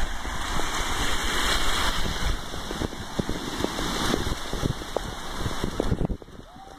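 Rainwater runoff rushing down flooded concrete steps and pavement, with scattered splashing from feet in the shallow water. It drops noticeably quieter about six seconds in.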